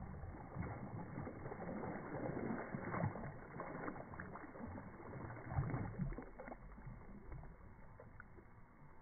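A hooked sunfish thrashing and splashing at the surface of a pond, in irregular splashes with the biggest one about five and a half seconds in. The splashing dies down over the last few seconds.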